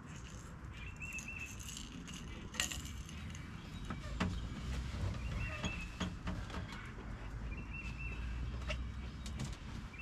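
Small sharp clicks and jangles of fishing tackle being handled, from a catfish rig fitted with a Madcat rattle. A bird gives short high chirps every couple of seconds over a low steady rumble.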